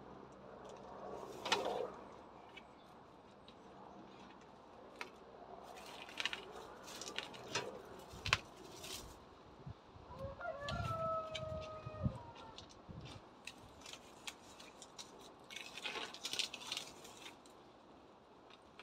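Weeds being pulled up by hand from gravel: rustling leaves and roots and loose pebbles clicking against each other in scattered bursts, with a few low thumps from footsteps around the middle. A short held note sounds about ten seconds in.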